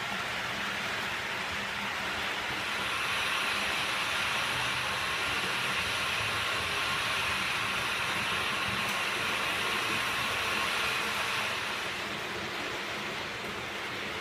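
H0-scale model train running on the layout's track: a steady whirr of the small electric motor and wheels on rail with a faint hiss, growing louder about three seconds in and fading again near the end as the train passes.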